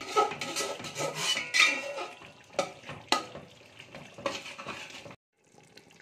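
Metal spatula stirring thick chicken korma gravy in a metal pot: repeated wet scraping and clinks of the spatula against the pot, with a few sharper knocks. The sound cuts off suddenly about five seconds in.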